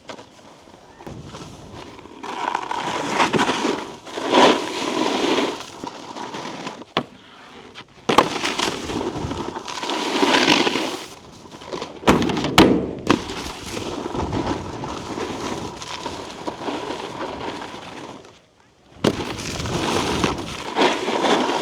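Snowboard edges scraping and chattering over icy, choppy snow in waves as the rider turns, with several sharp knocks and clatters from the board.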